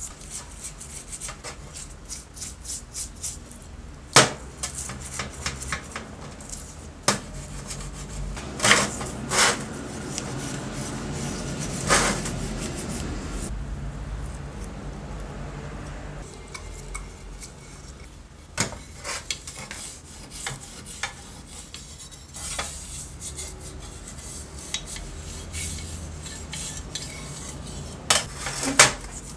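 Small hand brush scrubbing dismantled circular-saw parts in a tray of cleaning liquid: a scratchy rubbing with many light clicks, and now and then a sharper clink as a metal part knocks against the tray or another part.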